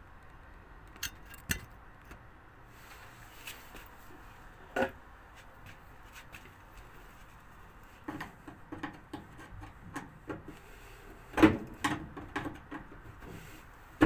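Scattered clicks, taps and scrapes of a small hand tool working at a screw on a washing machine's plastic back panel, used in place of a screwdriver. A few isolated clicks at first, then a busier run of knocks and scrapes in the second half.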